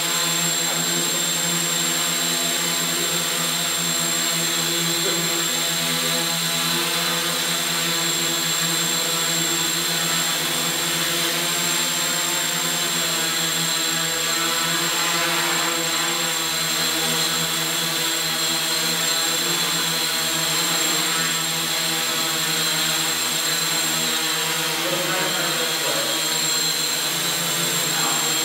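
AeroQuad quadcopter's four motors and propellers running steadily at high power as it strains to lift a seated person: an even, unbroken whir with a thin high whine over it.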